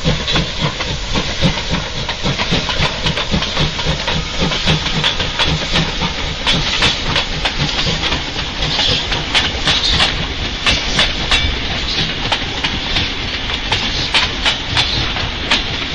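Steam locomotive number 3658 passing, with a steady hiss of steam over a rhythmic exhaust beat, and many sharp clicks of the train running over the rails.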